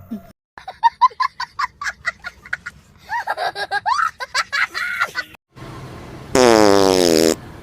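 Rapid bursts of laughter-like voice sounds, then near the end one loud, buzzy fart sound about a second long that falls steadily in pitch.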